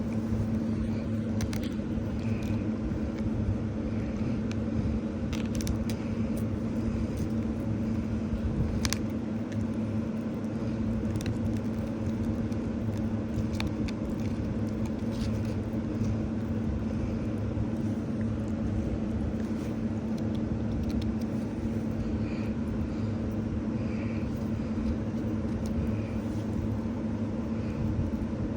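Steady low mechanical hum with rumble, holding one pitch, with a few faint clicks over it.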